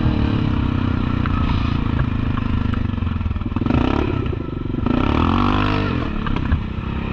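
Yamaha Kodiak 700 ATV's single-cylinder engine running under throttle on a rough trail, with two louder surges about three and a half and five seconds in. Some rattling and scraping of the machine can be heard under it.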